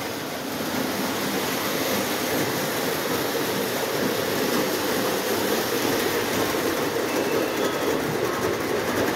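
Lionel O27 model trains running on the layout's track, a steady sound of wheels and electric motors.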